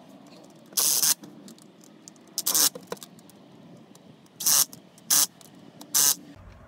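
Five short, sharp bursts about a second apart from a tool running in the driveshaft bolts, snugging them in a little without fully tightening.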